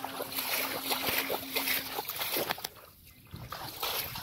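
Shallow muddy water splashing and sloshing as a fishing net is dragged and gathered through it by hand, with a short lull about three seconds in.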